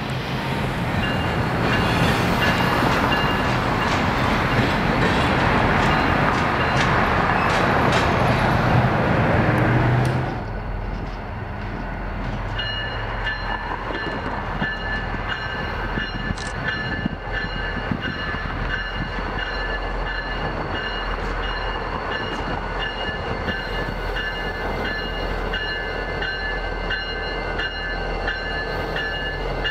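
Freight train cars rolling past on the rails, with a dense rumble and rapid wheel clicks. About ten seconds in the sound drops abruptly to the steady running of the diesel locomotives BNSF 3188 and BN 2740: a low hum under several high, constant whining tones.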